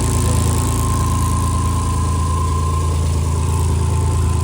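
Freshly reinstalled 5.3 LS V8 in a rock buggy idling steadily, with a thin steady whine over the engine note.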